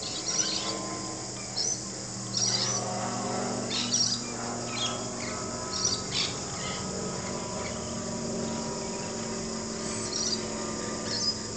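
Short, high bird chirps at irregular intervals over a steady background buzz of insects.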